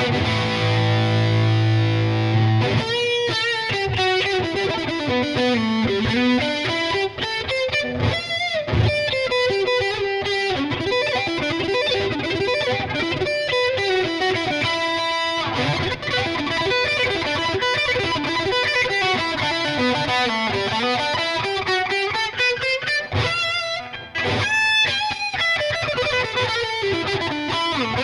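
Lavish CMRL FL electric guitar played with a distorted tone: a held chord, then fast picked lead runs climbing and falling in pitch, with a bent, wavering high note near the end.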